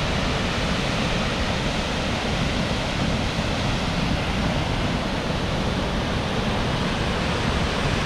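Stock Ghyll Force waterfall in full winter spate: a steady, unbroken rush of raging water, heaviest in the low end.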